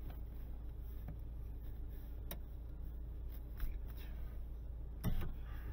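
Low steady rumble with a few light clicks of handling on a rifle-mounted camera, and one short, louder thump about five seconds in.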